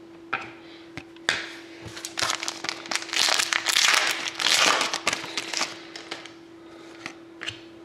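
Crinkling of a foil trading-card pack wrapper as it is torn open and the cards handled, with a few sharp clicks first and the crinkling heaviest in the middle. A faint steady hum lies underneath.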